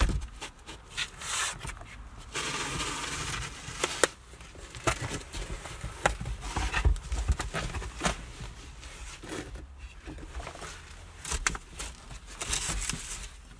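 Scraping, rustling and scattered knocks of a person crawling on hands and knees across loft boards and insulation, with a longer stretch of rustling about two seconds in.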